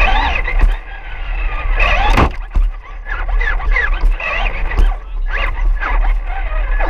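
A radio-controlled car driving, its small motor whining up and down in short bursts with the throttle over a steady low rumble, and a sharp knock about two seconds in.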